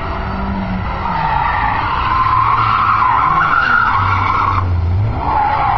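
Volvo 740 doing a burnout: the engine runs hard while the rear tyres spin and squeal against the asphalt. The squeal grows louder about a second in and dips briefly near the end before picking up again.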